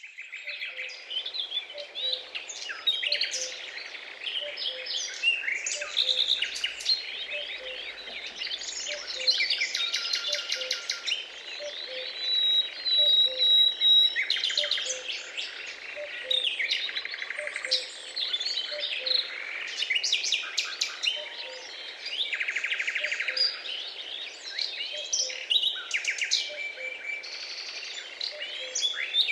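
Many small birds chirping, calling and trilling at once in a dense, continuous chorus, with a faint low note repeating about once a second underneath.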